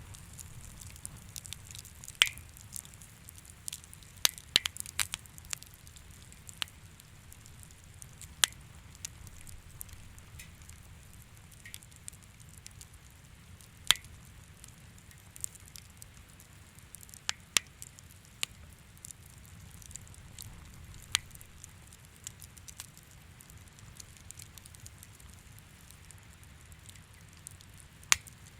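Bonfire crackling: irregular sharp pops and snaps of burning wood over a low steady rumble.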